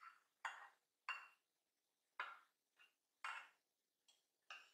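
Metal spoon scraping and clinking against the rim of a stainless steel saucepan as caramel is worked out of it: about seven short, sharp scrapes and taps at irregular intervals, some with a faint metallic ring.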